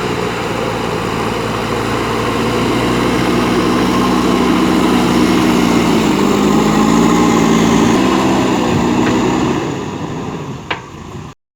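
JCB 3DX backhoe loader's diesel engine running, growing louder and then easing off, with one sharp clank near the end before the sound cuts off.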